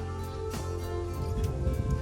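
Background music: soft instrumental with held tones, plucked guitar notes and a low bass.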